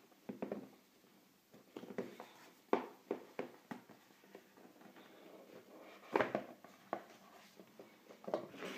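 Handling noise from an iPad Air 2 cardboard retail box: scattered taps, rubs and knocks as hands turn it and set it against the table. Near the end comes the scrape of the snug lid starting to slide off its base.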